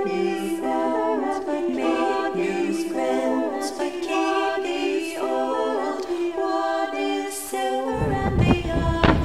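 Unaccompanied voices singing a song in harmony. About eight seconds in the singing stops and fireworks take over: a sudden burst of noise with two sharp bangs near the end.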